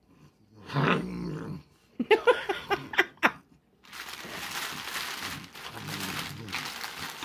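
A low growl about a second in, then a run of short yelping calls. From about four seconds on comes steady crinkling of a fast-food paper wrapper being pulled open and handled.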